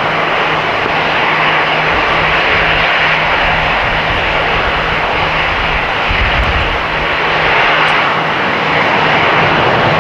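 Steady, loud jet engine noise from airliners: an Airbus A320 rolling out after touchdown on a wet runway, with large jets taxiing close by. A faint low hum pulses on and off underneath.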